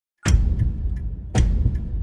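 Horror sound effect starting a quarter second in after dead silence: a deep low rumble with a sharp, clock-like tick hit about once a second.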